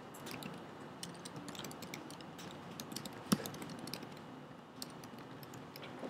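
Typing on a computer keyboard: a run of light key clicks, with one louder click a little over three seconds in.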